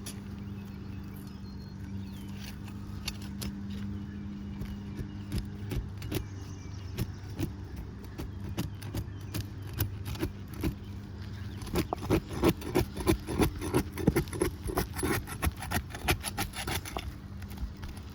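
Pry tool working under brittle asphalt shingles: scattered scraping and clicking, then a quick run of sharp scrapes, about three a second, through the last several seconds.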